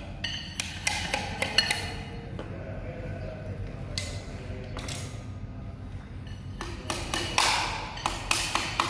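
Hand hammer striking a chisel or metal tool on concrete: quick runs of sharp taps with a short metallic ping, clustered in the first two seconds and again in the last two, with a few single strikes in between.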